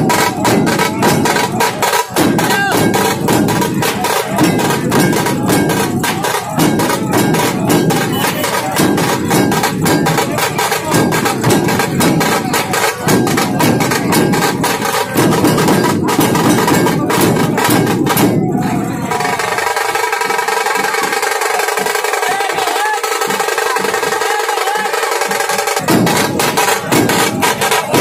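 Music with fast, dense drumming. About two-thirds of the way through, the drums drop out for several seconds, leaving steady held tones, and then the drumming comes back near the end.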